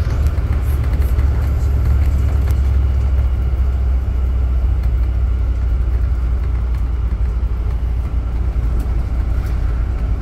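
Inside a 2016 MCI D4500CT motor coach at highway speed: a steady low rumble of its Cummins Westport ISX12-G natural-gas engine mixed with road and tyre noise.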